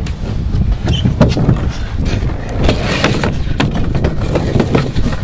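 A person sliding down a plastic spiral playground slide: a steady low rumble with scattered knocks and squeaks of body and clothes against the plastic.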